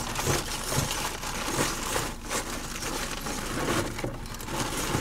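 Irregular rustling and crinkling with small clicks, like material being handled close by.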